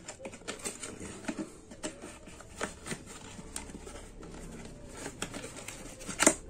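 Cardboard box being handled and opened by hand: scattered irregular clicks and rustles of the flaps and packaging, with one sharper, louder click near the end.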